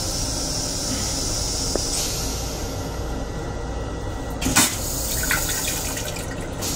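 Metro-North M7 railcar toilet flushing. Rinse water hisses into the stainless bowl and stops about two seconds in, then a sudden loud whoosh about four and a half seconds in as the bowl empties, over the low rumble of the moving train.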